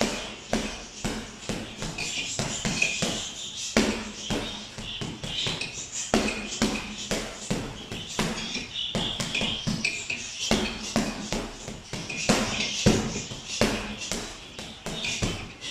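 Boxing-gloved punches landing on a Fairtex leather heavy bag: irregular flurries of thuds, several a second, with a few hard single shots standing out. Music plays in the background.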